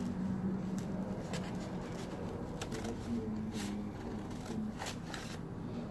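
Scissors cutting folded paper: a few scattered snips and light paper rustling.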